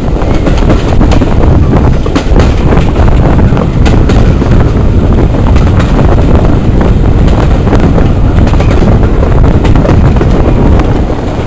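Passenger train running, heard from an open carriage window with strong wind buffeting the microphone, a loud steady rush.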